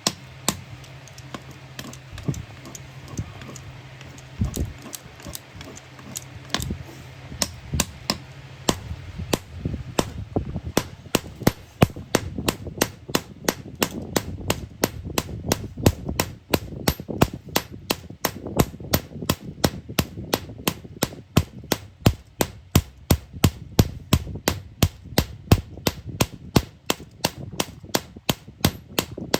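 Hammer blows on iron, irregular at first over a low steady hum, then settling after about ten seconds into a fast, even rhythm of several strikes a second.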